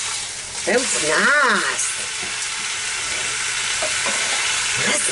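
Pork steaks frying in a pan, sizzling steadily, with a short voice sound about a second in.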